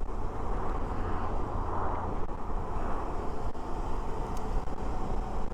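Suzuki V-Strom 650 motorcycle riding at road speed: steady wind rush and engine noise, heard through a helmet-mounted lavalier mic.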